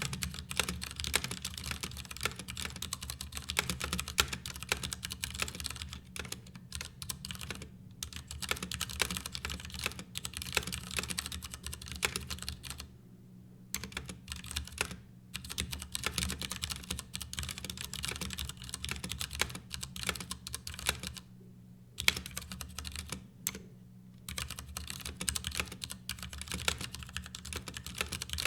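Continuous fast typing on a Ducky Year of the Rat hot-swap mechanical keyboard, whose case has no sound-dampening material: a dense run of key clacks broken by a few short pauses.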